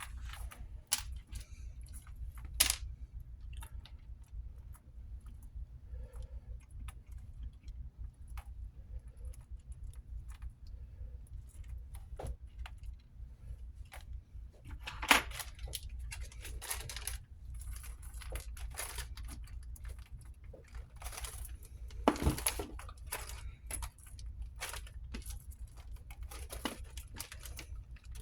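Scattered small clicks, taps and rattles of tiny diecast car parts (wheels, axles, the metal casting) being handled and fitted by hand, with a few louder knocks. A steady low hum runs underneath.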